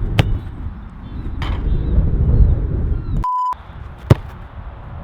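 A short, steady censor bleep about three seconds in, over low rumbling outdoor noise. A sharp knock follows about a second later and is the loudest sound.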